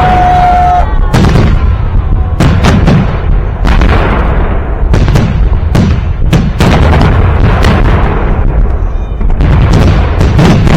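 Victory Day fireworks salute: loud, sharp bangs of bursting shells in quick, irregular succession over a continuous low rumble. A steady high whistle fades out in the first second.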